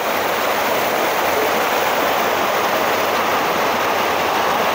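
Water rushing steadily down a small stream waterfall in a garden, a constant even rush.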